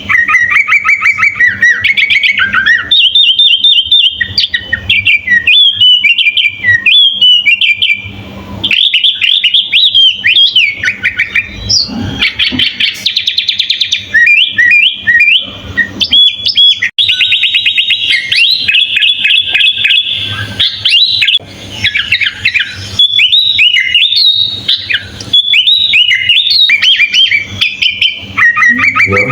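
Sooty-headed bulbul (kutilang) singing a long, varied run of quick chirps and whistled phrases, with a couple of longer rapid trills, over a faint steady low hum.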